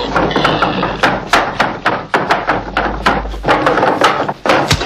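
A scuffle on the floor: a rapid, irregular run of thuds and knocks, several a second, with a brief break near the end.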